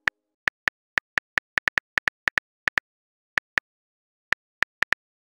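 Smartphone keyboard typing clicks: a string of about twenty short, light ticks at an uneven pace, like keys tapped in quick runs with brief pauses, with a longer gap in the middle.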